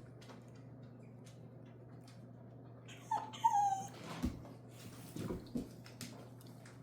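Dog play-fighting: a short high whine about three seconds in, then a few low, short grunting sounds.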